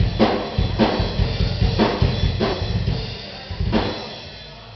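Drum kit played in a sound check: a beat of kick drum with sharp snare and cymbal hits roughly every half second, the playing stopping about four seconds in and the cymbals ringing away.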